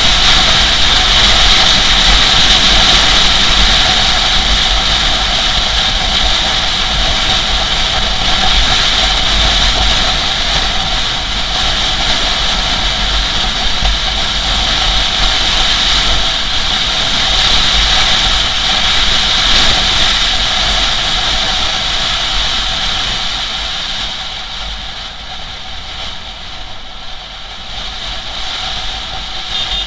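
Motorcycle riding at highway speed, heard from a camera mounted on the bike: a loud, steady rush of wind over the microphone with the engine running underneath. It quietens a little in the last few seconds.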